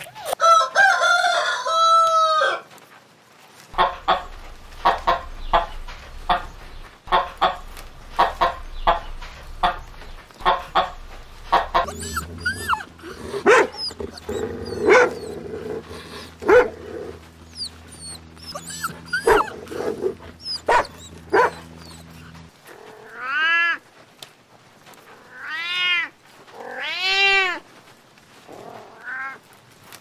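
Animal calls in turn: a kitten mewing at the start, then a long run of short sharp calls or clicks over a steady low hum, and near the end a cat meowing several times, each meow rising and falling.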